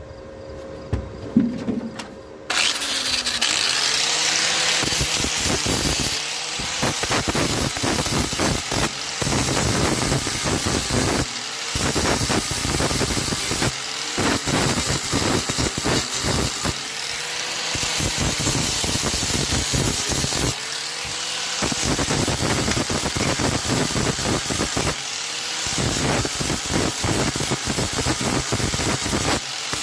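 Angle grinder grinding down fresh flux-core welds on steel. It starts about two and a half seconds in: a steady high whine over harsh grinding noise, easing off briefly every few seconds.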